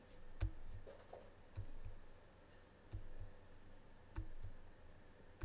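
Faint clicks and soft low knocks over quiet room tone: about four clearer ones roughly a second and a quarter apart, with a few smaller ticks between them.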